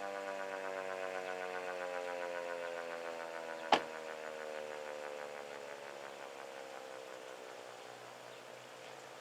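Federal Signal 2001-130 tornado siren winding down after its test: a steady siren tone sliding slowly lower in pitch and fading as the rotor coasts to a stop. One sharp click about four seconds in.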